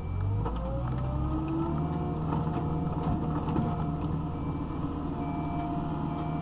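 Wheeled excavator's diesel engine and hydraulics working the bucket. The engine revs up over the first couple of seconds, then runs steadily under load.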